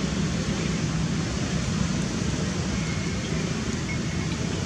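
Steady rushing background noise with no distinct calls or knocks in it.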